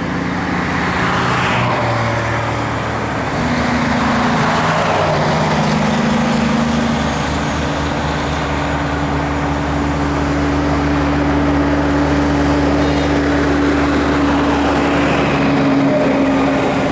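Highway traffic: vehicles passing in several swells of tyre and wind noise, over the steady low drone of a heavy engine, likely a tractor-trailer's diesel, whose pitch shifts in steps a few times.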